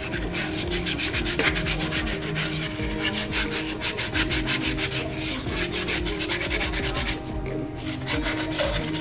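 A coconut-shell teapot being scrubbed back and forth with a hand-held scrubbing pad in bleach water, about five rubbing strokes a second, with a brief pause near the end.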